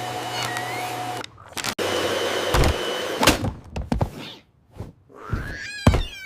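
Vacuum cleaner motor running with a steady hum, cutting off about a second in, then running again for about a second and a half, with several thumps. A short wavering cat cry comes near the end.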